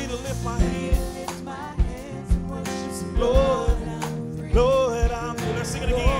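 Live gospel worship band playing: singers over drum kit, bass guitar, electric guitar and keyboard, with sharp drum hits marking the beat.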